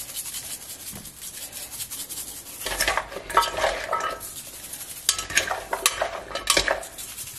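Cut raw red potatoes and carrot pieces tossed by hand in a stainless steel pot, knocking and rattling against the metal sides in irregular bursts from about two and a half seconds in. Before that, the faint patter of seasoning shaken from a bottle over the vegetables.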